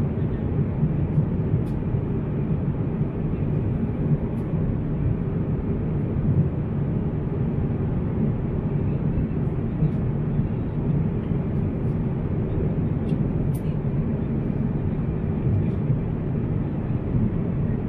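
Steady cabin noise of an Airbus A350 in cruise: an even, low rush of airflow and engine noise heard inside the economy cabin. A few faint light clicks sound here and there.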